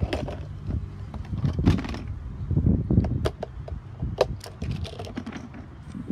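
Irregular plastic clicks and knocks as a reacher-grabber tool's jaws and shaft bump and scrape against a small plastic bin on the pavement, over a low rumble of handling noise.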